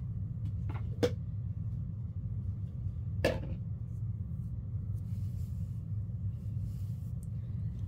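A steady low hum with two light knocks, one about a second in and a sharper one a little past three seconds in.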